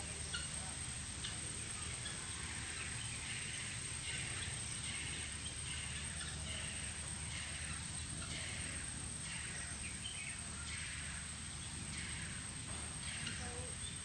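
Outdoor ambience: a steady low background hum with short high chirps repeating roughly once a second. The chirps are too high to come from the emu.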